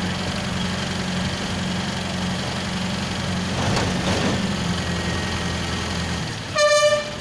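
Diesel engine of an ACE mobile crane running steadily at idle, dropping away about six seconds in. Near the end a vehicle horn sounds once, loud and brief, for about half a second.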